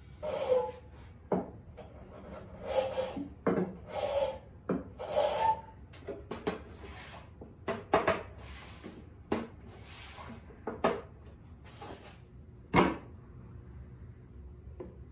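Wooden parts rubbing and scraping against a wooden furniture carcass in short strokes of about half a second, a dozen or so, some with a faint squeak. A few sharp wooden knocks come between them, the loudest near the end.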